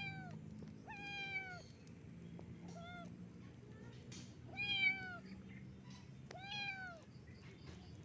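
Kitten meowing five times in high-pitched cries, the third one short and the fourth the loudest.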